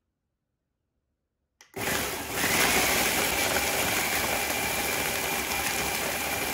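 Ninja food processor switched on with a click about a second and a half in, then running steadily with a faint high whine, its blade grinding chocolate cookies, brown sugar and espresso powder into fine crumbs.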